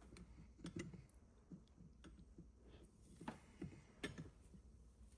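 Faint scattered metallic clicks and taps from a valve spring compressor being worked on a VR6 cylinder head, trying to free a stuck valve keeper.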